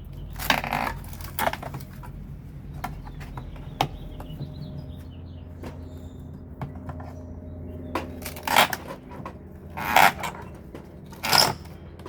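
Wooden demolition debris knocking and clattering as it is handled and dropped, in about six separate bursts, over a steady low hum.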